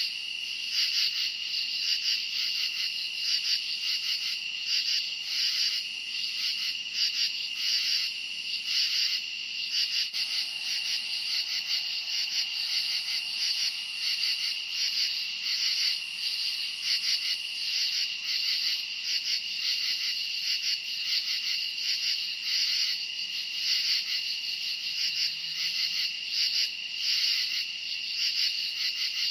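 A summer-night chorus of crickets chirping: one steady high trill under quick, even, rhythmic chirps that go on without a break.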